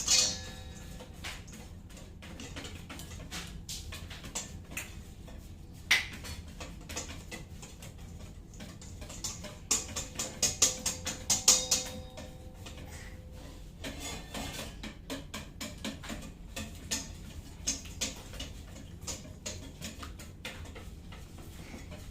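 A spoon or whisk clinking and tapping against a mixing bowl while batter is stirred, with a quick run of taps about ten seconds in and a faint ring from the bowl.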